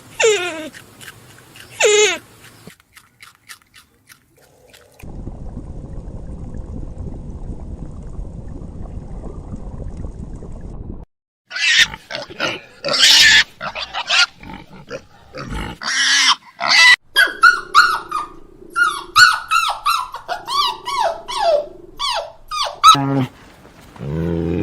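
A sequence of farm animal calls: two falling cries, then about six seconds of steady low grunting, then a rapid run of short, high calls that fall in pitch.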